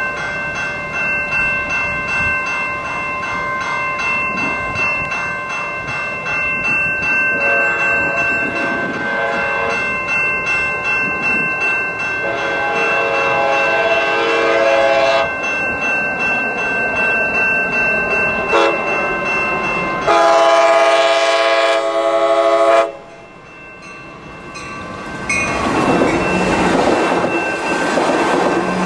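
An Amtrak Pacific Surfliner train sounds its horn for a grade crossing in the standard long, long, short, long pattern while the crossing bell rings steadily. A few seconds after the last blast the bi-level cars rumble past close by, wheels clacking over the rails.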